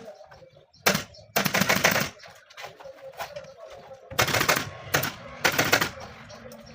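Pneumatic upholstery staple gun fired in rapid bursts, five runs of quick clattering shots.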